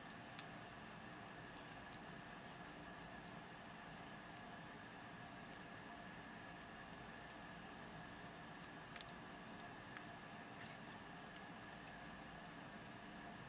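Faint scattered clicks and ticks of small plastic parts being worked, as the plastic casing around a Sony a7s camera's LCD panel is pried up against its adhesive, with a short cluster of louder clicks about nine seconds in. A steady low hiss with a faint high tone runs underneath.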